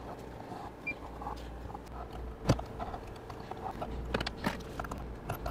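An X-Acto blade cutting and scraping the gasket along the edge of a metal ECM cover: faint scratching with a few sharp clicks, the loudest about two and a half seconds in, over a steady low hum.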